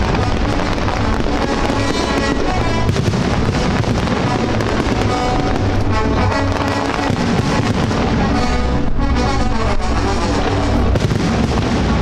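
Aerial fireworks bursting in quick succession, many bangs and crackles, over music with held notes.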